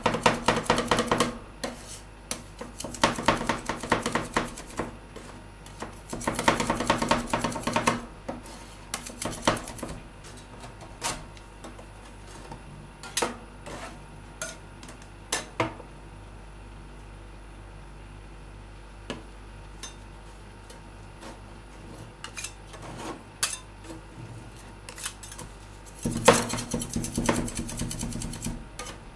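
Two steel spatulas chopping and tapping on a stainless steel rolled-ice-cream cold plate, working macaron pieces into the ice cream base. Several quick bursts of rapid metal clicks, with scattered single taps between and a sparser stretch mid-way.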